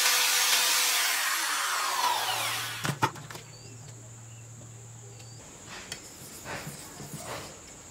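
Handheld rotary tool with an abrasive drum grinding a steel knife blade: a loud whir and hiss, its pitch falling as it winds down, stopping about three seconds in with a click. A few faint scrapes of the blade stroked across a sharpening stone follow near the end.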